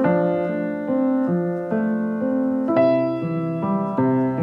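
Gentle background piano music, with sustained notes changing about every half second and lower bass notes coming in about three seconds in.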